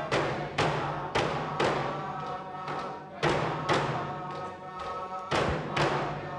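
Inupiaq frame drums with walrus-stomach heads, struck together in a steady beat of about two strokes a second with a few short pauses, under group singing.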